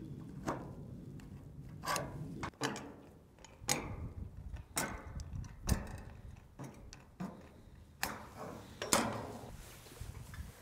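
Tin snips cutting thin painted steel trim: a series of about eight sharp metallic snips at uneven intervals, each followed by a short ringing tail.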